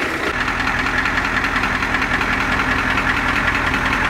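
Ford OBS truck's 7.3-litre Powerstroke turbo-diesel V8 idling steadily.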